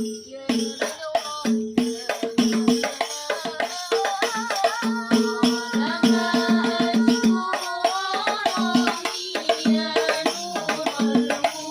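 Hadroh ensemble of frame drums (rebana) playing a fast, dense rhythm, with a voice singing over it through the middle stretch.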